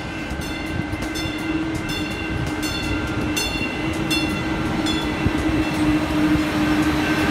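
Passenger train cars rolling past at close range, with a steady hum and a regular ringing strike about every 0.7 s that stops about five seconds in. The rolling noise grows louder near the end.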